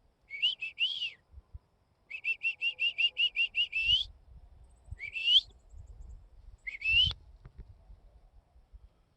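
High, rising bird-like chirps: a few short ones, then a quick run of about ten in a row, then single chirps spaced a second or two apart. A faint low rumble runs beneath.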